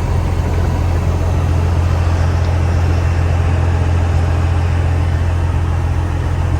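Steady low drone of a running engine, unchanging in level and pitch.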